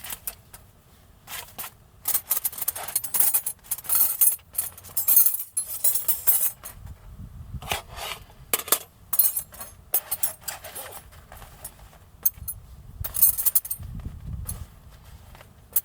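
Gear being handled by hand: irregular clinks, rubs and scrapes coming in short, uneven bursts, with a couple of low bumps or rumbles.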